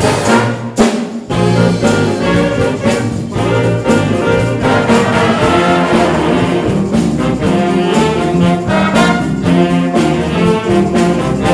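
School jazz big band playing a jazz tune: saxophones, trumpets and trombones sounding together as an ensemble, with sharp accents in the first second.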